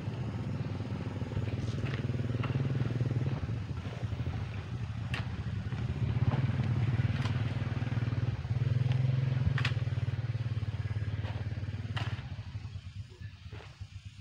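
An engine runs with a steady low drone that fades away near the end. On top of it come several short sharp scrapes as a hand tool digs into soil and scoops it into a metal pot.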